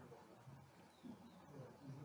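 Near silence: faint room tone, with faint scratching of a stylus writing by hand on a digital tablet.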